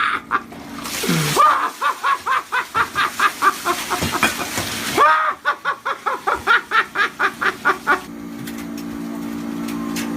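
Men laughing hard in rapid rhythmic bursts. About eight seconds in, the laughter stops and a steady motor hum takes over.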